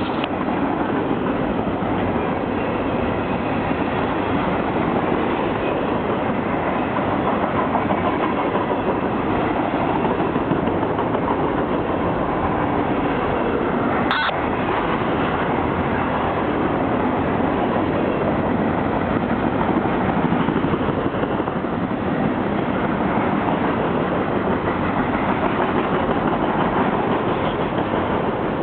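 Empty trash cars of a freight train rolling past on the rails: a steady, loud rumble and rattle of wheels on track, with one sharp click about halfway through.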